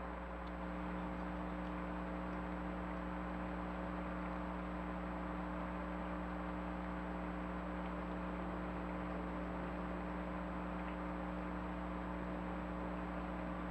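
Steady hiss with a constant electrical hum: the trail camera's own microphone and circuit noise, with no animal calls.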